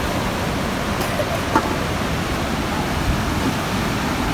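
Swat River rushing over stones: a steady, even rush of fast white water.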